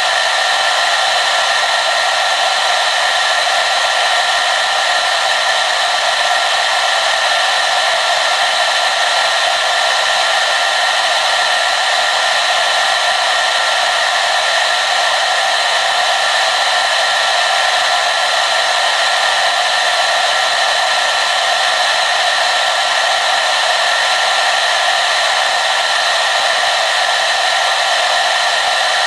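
Hair dryer running steadily: an even, unchanging blowing hiss with a faint whine over it.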